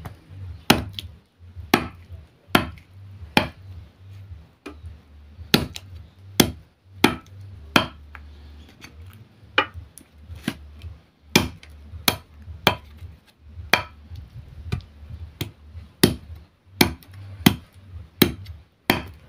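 Large knife chopping chicken into pieces on a wooden block: a long run of sharp, irregular chops, about one or two a second.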